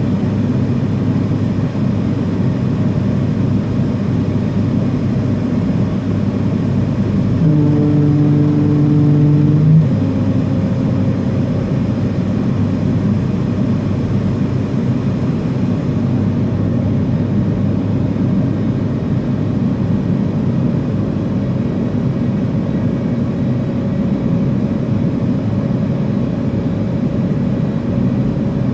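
Steady engine noise in the cabin of an MD-80 airliner, its rear-mounted Pratt & Whitney JT8D engines running at low power on the ground before takeoff. From about seven and a half seconds in, a steady hum with a couple of overtones sits on top of it for a little over two seconds, then stops.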